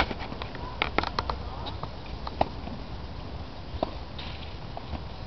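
Tennis ball struck by rackets and bouncing on a hard court during a rally: sharp pops a second or more apart, a few close together about a second in, over steady low background noise.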